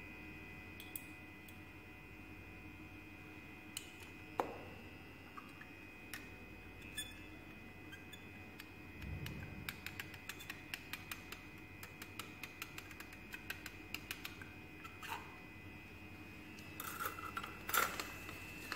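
Faint clinks and ticks of glass labware being handled: a glass pipette against a glass petri dish. There is a single sharper click about four seconds in, a run of light ticks at about two a second in the middle, and a louder clatter of glass near the end.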